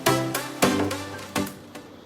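Background music: pitched notes struck with sharp attacks that ring and decay, three strong ones in the first second and a half, then fading to a low level.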